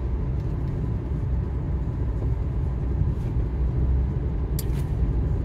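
Steady low rumble of a moving car's engine and tyres, heard from inside the cabin, with a brief hiss near the end.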